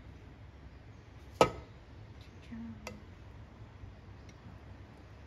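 Plastic rice paddle scooping fried rice from a rice cooker's inner pot. It gives one sharp knock about one and a half seconds in and a lighter click near three seconds, over faint scraping.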